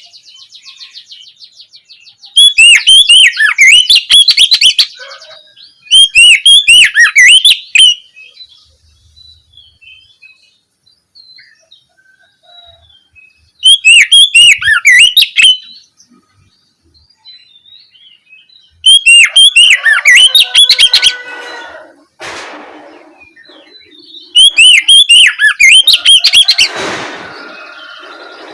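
Oriental magpie-robin (kacer) singing loudly in five bursts of fast, varied whistled phrases, each about two seconds long, with quiet pauses between. A couple of short harsh rasps come in the latter part.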